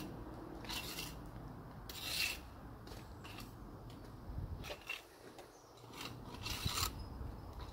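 A series of short, rough scraping and rubbing sounds, about a second or so apart, over a low steady background.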